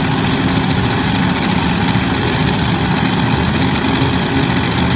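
Engine of a modified pulling tractor running loud and steady.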